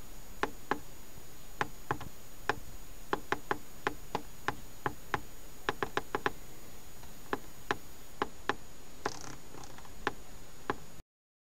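Knob switch on an Opel Corsa C's CDR 2005 car radio clicking under a finger as it is worked again and again: about two dozen sharp clicks at uneven intervals, some in quick pairs. The radio's switch is faulty.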